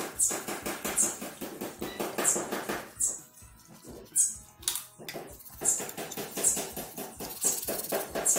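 A cloth rubbing and scrubbing a motorcycle's rear brake caliper and its slide pins, in short repeated strokes about once a second, with small scrapes and clicks of metal being handled.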